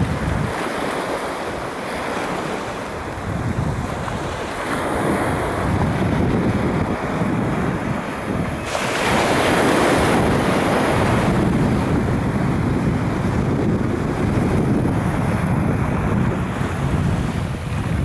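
Surf washing onto a sandy beach, with wind rumbling on the microphone; a louder rush of surf or gust comes about nine seconds in.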